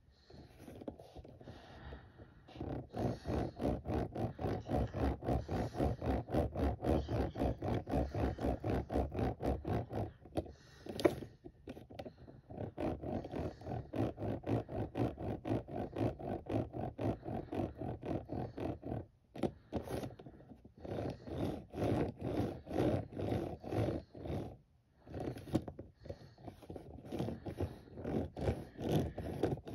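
Rubber tyres of a Hot Wheels Bigfoot monster truck toy rolling and scraping on a smooth hard surface as it is pushed rapidly back and forth by hand. The strokes come at about four a second, with a few short pauses.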